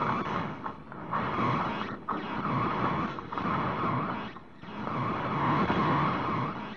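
Harsh noise music played from a cassette: a dense, distorted wall of grinding noise with a bright midrange band over a low rumble. It breaks off briefly about two seconds in and dips again for a moment about four and a half seconds in before surging back.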